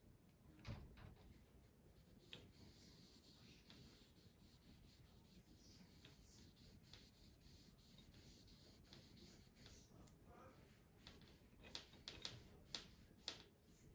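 Faint rubbing of a cloth-wrapped electro-etching wand worked along a steel knife blade, with a few light clicks and taps near the end.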